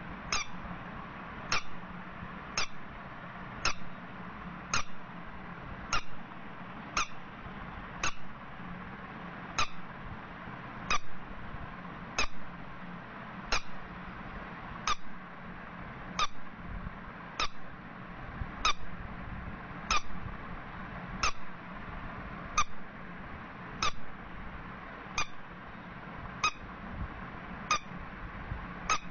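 A small yellow rubber duck squeeze toy squeaking again and again, a short sharp squeak about once a second, each time it is squeezed in the hand, over a steady low hum.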